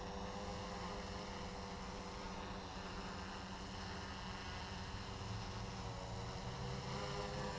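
Flip Sport quadcopter's motors and propellers buzzing steadily in a hover, several pitches drifting slightly as the motors adjust speed.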